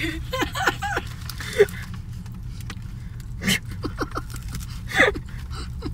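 A crisp hard taco shell being bitten and its paper wrapper crinkling, heard as a few short sharp crunches over a steady low hum inside a car. There are brief voice sounds in the first second.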